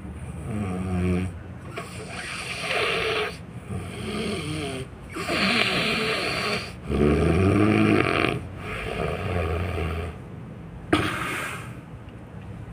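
A person snoring loudly, one rough breath after another, each lasting about a second and a half, with a brief sharp noise about eleven seconds in.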